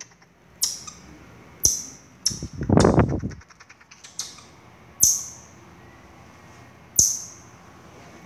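Baby marmoset giving a series of short, very high-pitched calls, one every second or two, each falling away quickly. A louder rasping, rattling noise comes about two and a half seconds in.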